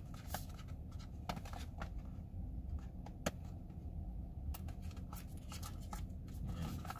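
A cardboard retail box being handled and its end flap worked open by hand: scattered scrapes and light clicks of cardboard, one sharper click a little after three seconds in, over a low steady rumble.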